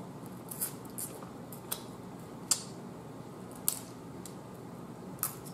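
Cooked crab shell snapped and picked apart by hand: about half a dozen short, crisp snaps scattered a second or so apart.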